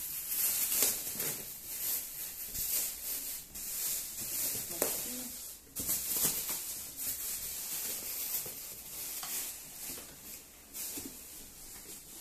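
Clear plastic wrap crinkling and rustling as it is pulled and peeled off a chair seat cushion by hand, in irregular crackly handfuls, a little quieter in the last few seconds.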